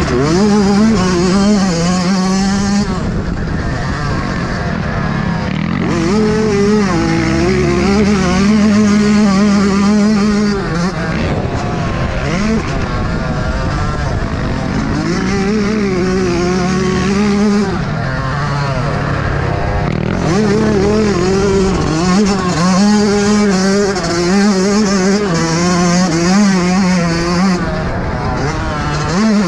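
Yamaha YZ125 two-stroke single-cylinder motocross engine ridden hard, its pitch climbing and dropping back every few seconds as the throttle is opened and closed.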